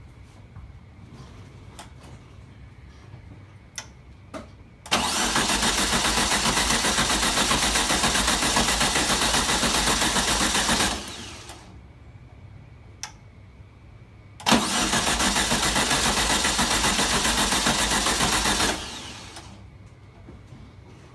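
1973 VW Super Beetle's air-cooled flat-four engine cranked by the starter twice, about six seconds and then about four, without firing: the car won't start. A few faint clicks come before each attempt.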